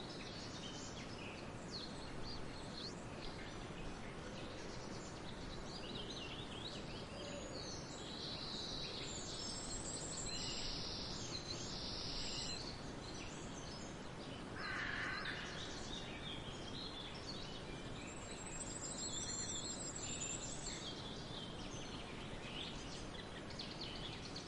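Outdoor nature ambience: a steady, even hiss with birds calling and chirping now and then, including a harsher, louder call about fifteen seconds in.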